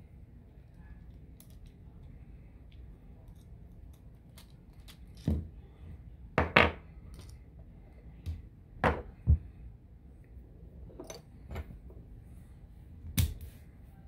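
Assa Twin Exclusive mogul lock cylinder being taken apart by hand: a series of separate metallic clicks and knocks as its parts move and come out. The loudest come about six and a half seconds in and near the end.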